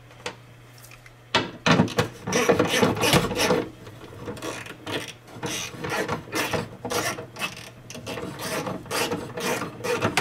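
Hand ratchet with a 13 mm socket clicking as bolts are loosened. About a second in comes a loud run of rapid clicks, then lighter, uneven clicking.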